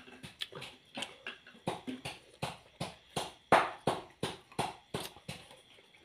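A person chewing food with wet mouth smacks, a steady run of sharp clicks at about three a second.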